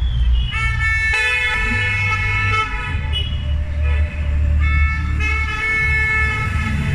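Several car horns honking at once in long overlapping blasts from a line of passing cars, with a gap about three seconds in before they start again. A steady low rumble of engines and road noise runs beneath them.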